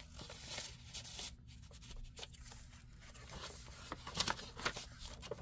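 Paper rustling as the pages and tucked-in paper flaps of a handmade junk journal are handled and turned, with a few sharper crackles a little after four seconds in.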